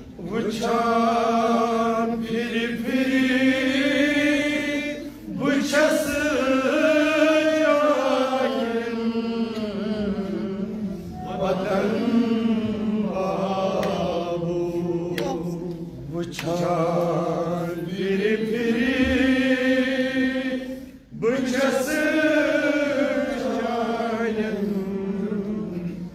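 A man chanting a Kashmiri noha, a Shia lament, unaccompanied, in long drawn-out wavering phrases with a short breath about every five seconds.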